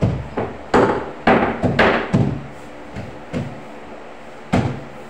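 Irregular knocks and bumps from work on a bathtub being fitted: a quick cluster in the first two seconds, a few lighter ones after, then one sharp knock near the end.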